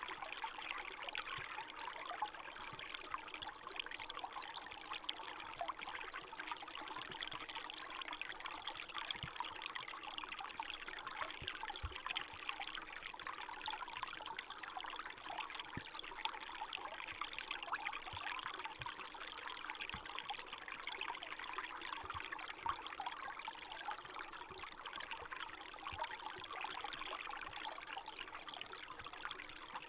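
Small forest stream running steadily over stones and through gaps in thin ice, a continuous trickling, splashing babble.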